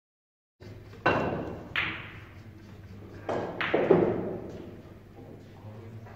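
Pool shot on a nine-ball table: sharp knocks of the cue and billiard balls striking each other and the cushions, in two clusters about a second in and three to four seconds in, over a low steady hum.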